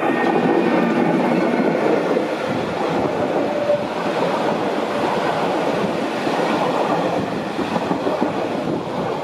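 Passing Matterhorn Gotthard Bahn train, an HGe 4/4 electric locomotive and its coaches, going by close alongside on the next track: a loud, steady rush and rumble of wheels and bodies with some clickety-clack over the rail joints.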